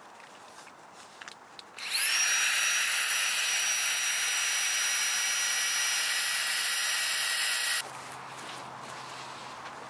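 A small electric motor spins up with a rising whine, runs at high speed with a steady high-pitched hum for about six seconds, then cuts off suddenly.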